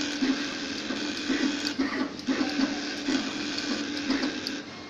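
NeoDen4 desktop pick-and-place machine running: the placement head's gantry motors whirr in short, rapid pulses as it moves over the LED board, with occasional light clicks.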